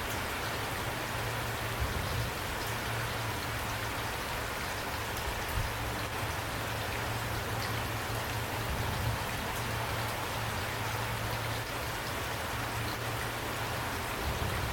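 Steady rain falling, with scattered drops ticking on a surface over a low, even hum.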